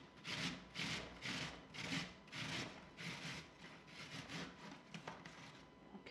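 A peeled Granny Smith apple being grated by hand on a stainless steel box grater: rasping strokes, about two a second, getting fainter in the last couple of seconds.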